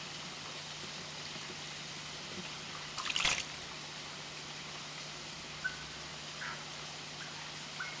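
A New Zealand scaup diving, with one short splash about three seconds in, over a steady background hiss and low hum. A few faint drips follow later as it resurfaces.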